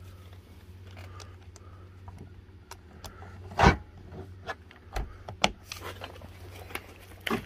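Tools being handled: scattered clicks and short knocks, the sharpest about three and a half seconds in, over a steady low hum.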